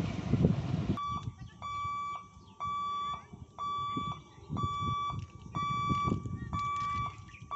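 Electric local train rumbling past for about the first second. Then a level-crossing warning buzzer beeps about once a second, a steady tone of about half a second each time, the warning given as the barrier booms are raised.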